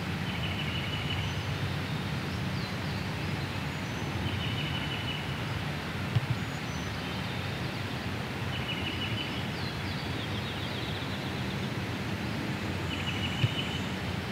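A small songbird's short, rapid trill, repeated about every four seconds, with fainter higher chirps from other birds, over a steady low rumble. A couple of small knocks are heard, one midway and one near the end.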